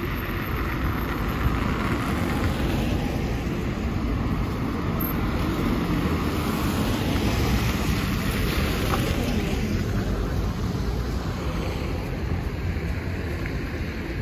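City street traffic: cars driving past on a wet, slushy road, the tyre hiss swelling in the middle as vehicles pass close by, over a steady low rumble.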